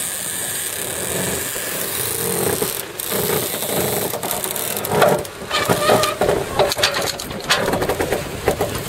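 Wind buffeting the microphone aboard a sailing yacht, and from about five seconds in, a cockpit sheet winch being ground, its pawls clicking in irregular bursts as the sheet is trimmed during a gybe.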